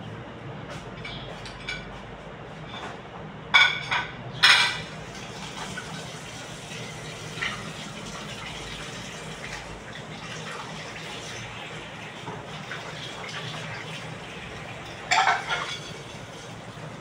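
A few short clinks and clatters of dishes and utensils over a steady background noise: three close together about three and a half to four and a half seconds in, and another cluster near the end.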